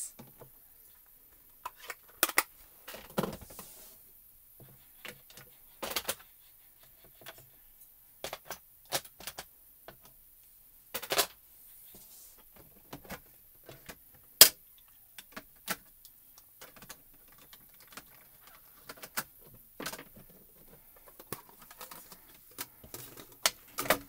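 Scattered sharp clicks and knocks of small plastic ink-pad cubes and a metal ink-pad tin being handled and set down on a craft desk, irregularly spaced with short quiet gaps between.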